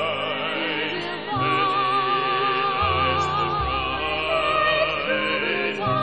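Stage-musical singing: a voice with wide vibrato holding long notes over orchestral accompaniment, with a low bass note that steps to a new pitch every second or two.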